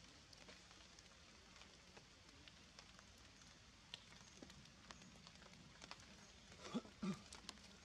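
Quiet, with scattered soft ticks of water dripping onto leaves after rain. Two short, louder sounds come close together near the end.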